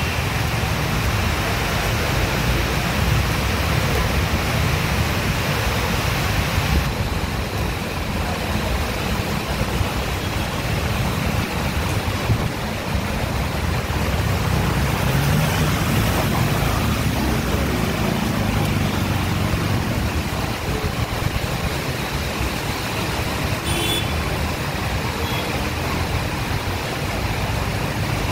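Heavy rain and road traffic on a flooded street: a steady wash of noise with a low rumble of vehicles driving through standing water.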